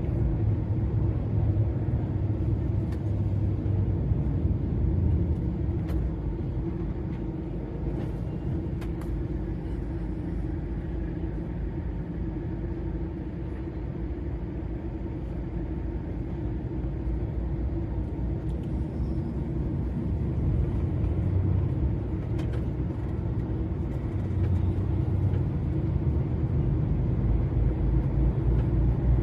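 A DAF XF 480 lorry's PACCAR MX-13 six-cylinder diesel and road rumble at cruising speed, heard inside the cab. It is a steady low drone that eases off a little in the middle and picks up again, with a few faint clicks.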